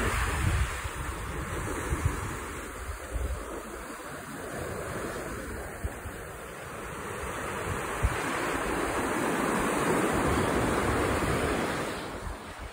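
Small waves breaking and washing up a sandy beach, a steady surf hiss that ebbs and swells again in the later seconds. Wind buffets the phone's microphone in the first few seconds.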